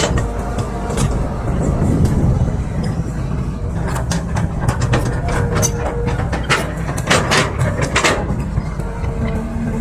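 Excavator's diesel engine running steadily under load, with a rapid run of sharp metallic clanks and knocks through the middle, typical of the tracks and bucket working.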